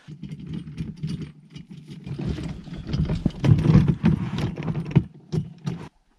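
Garden cart with a black plastic bed (Gorilla Carts) rattling and clattering as it is pulled on its wheels over rocky, uneven ground. The rattling stops shortly before the end as the cart comes to rest.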